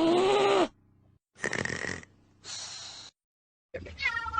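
A cat's drawn-out yowl rising in pitch, then two short, breathy, noisy sounds, and another cat call starting near the end.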